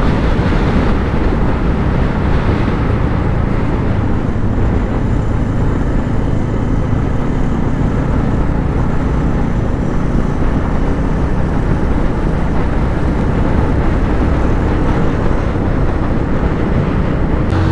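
Motorcycle riding noise from a Bajaj Avenger 150 on the move: a steady rush of wind over the microphone, with the low hum of the engine underneath.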